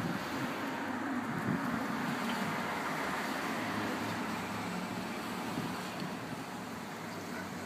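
Cars passing on a city street: tyre and engine noise swells as a car goes by about two to three seconds in, then eases off, with the low hum of traffic underneath.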